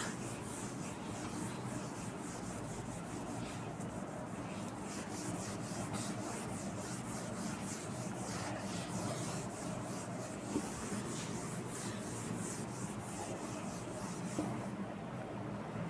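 Whiteboard eraser rubbing back and forth across a whiteboard in repeated wiping strokes, erasing marker, with an occasional light knock.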